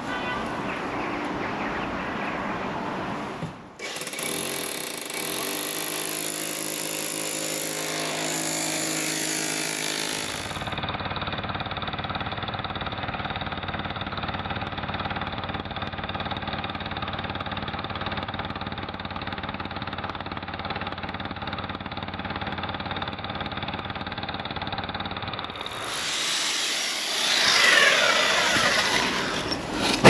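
Hammer drill with a 10 mm masonry bit drilling into brickwork, the motor and hammer action running continuously. The sound changes abruptly about 4, 10 and 26 seconds in.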